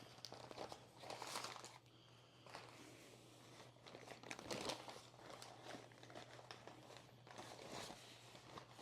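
Wrapping around a cooked, rested rack of beef ribs being crinkled and pulled open by hand: faint irregular rustling with a few louder handling bursts, over a faint steady low hum.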